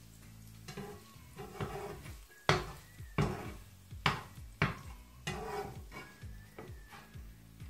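A metal fork stirring and scraping minced meat in a nonstick frying pan, with a run of sharp clacks against the pan over a light sizzle.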